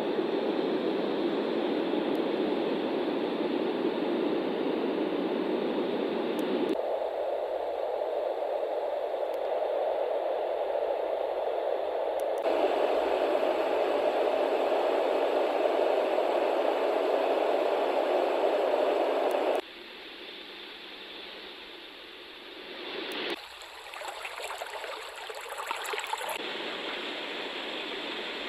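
Yogasleep Travel Mini white noise machine playing steady noise, switched abruptly to a different sound setting about five times. Each setting is an even hiss weighted at a different pitch, and it becomes quieter about two-thirds of the way through.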